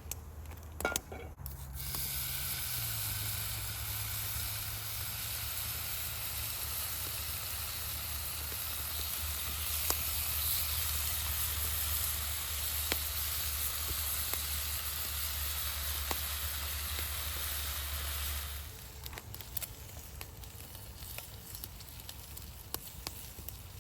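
Turkey bacon frying in a pan with a steady sizzle that starts about two seconds in and cuts off abruptly near the end. After that there is a quieter campfire crackle with small scattered pops.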